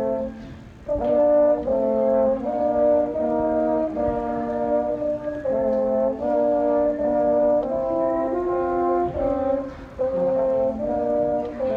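French horn playing a melody in separate notes, about two a second, with a short break about half a second to a second in.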